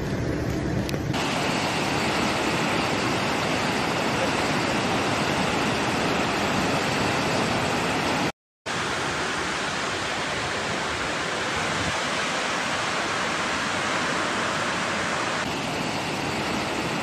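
Flash floodwater rushing in a steady, dense wash of noise, with a brief dropout about halfway through.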